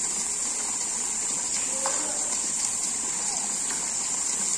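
Small fountain jet splashing steadily back into its stone pool, a constant hiss of falling water, with faint voices over it.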